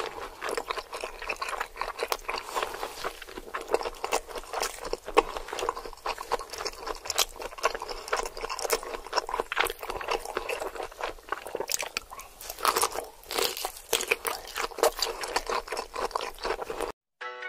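Close-miked chewing and crunching of crispy food, a dense run of irregular crackles and wet mouth sounds. The sound cuts off abruptly near the end.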